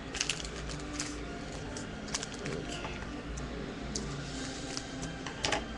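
Scissors cutting open a foil trading-card pack, with the wrapper crinkling: a few sharp snips and rustles, the loudest near the end, over a low steady hum.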